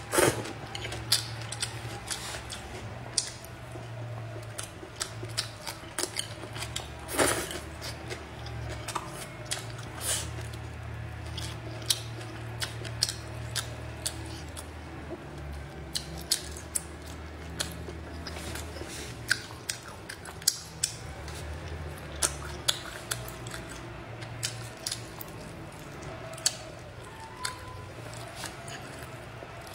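Chopsticks clicking and tapping against bowls and plates during a meal, in many irregular sharp clicks, over a low steady hum.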